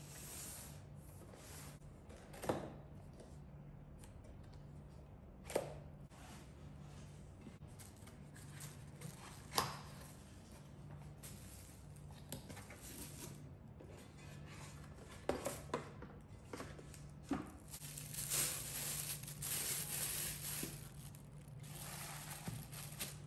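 Cardboard packaging and plastic wrap being handled: a box sliding, cardboard scraping and plastic crinkling, with a few sharp knocks as the box and pot are set down on the table. The rustling is heaviest near the end.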